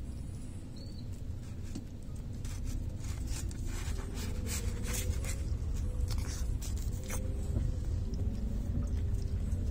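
Close-up chewing and mouth clicks from eating a soft taco, with crinkles of its paper wrapper, over a steady low rumble of a car's cabin.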